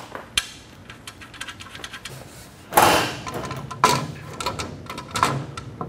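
Small clicks and taps of an upright cabinet post and its fittings being threaded in and set into a cabinet, with a louder knock about three seconds in and a couple of lighter knocks after it.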